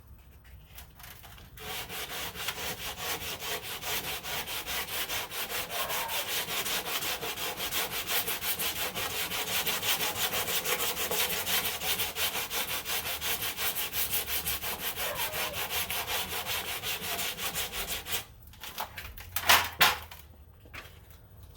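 100-grit sandpaper on a hand sanding block rubbing over cured body filler in quick, even back-and-forth strokes, levelling the filler until the paper touches every low spot. The sanding stops near the end and is followed by a single sharp knock.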